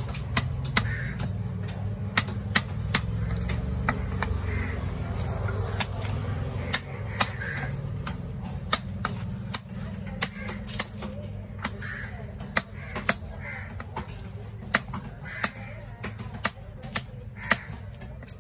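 Heavy fish-cutting knife chopping through fish heads onto a wooden log block: sharp knocks, about one to two a second, in an uneven rhythm. Crows caw repeatedly over a low background of voices.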